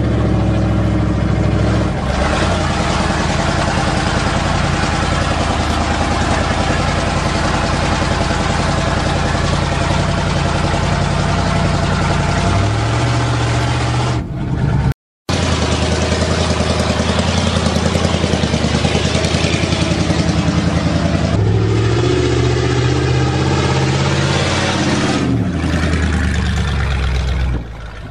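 Engine of a 1977 GMC 400 truck running as the truck drives, heard from inside the cab, its note changing in steps several times as it speeds up and slows. The sound cuts out briefly about halfway through.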